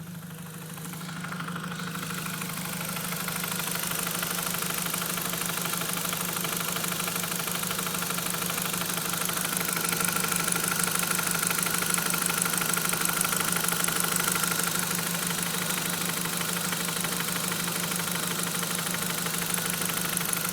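Audi TT's 1.8-litre turbocharged four-cylinder engine running with a fast, steady ticking knock over its note, growing louder over the first few seconds. It is an abnormal noise that the owner guesses is timing- or cylinder-head-related.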